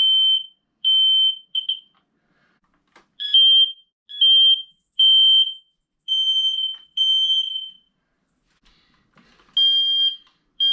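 Kidde FireX i4618AC smoke alarm sounding its test alarm: loud, high-pitched beeps in clusters of two or three with short pauses between them.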